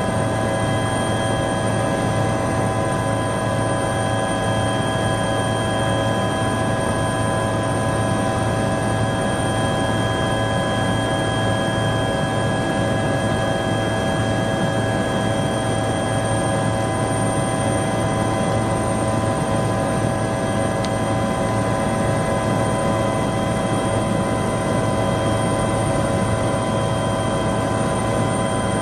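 Helicopter cabin noise in flight: a loud, steady drone of engine and rotor, with several constant high whining tones over it.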